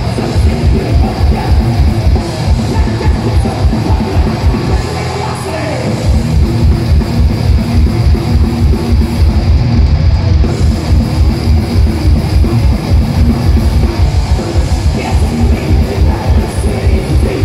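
Live thrash metal through a festival PA: distorted electric guitars and bass over a fast, even kick-drum beat. The kick drum drops out for about a second around five seconds in, then comes back.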